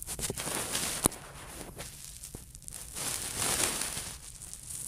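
Handling noise of a phone camera being moved about over fabric bedding: uneven rustling in two spells, with a sharp click just after a second in.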